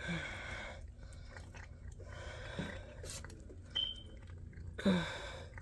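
Domestic cat chewing and crunching a mix of dry kibble and wet food, close to the microphone, in three bouts of about a second each. A short high squeak comes a little past two-thirds of the way in.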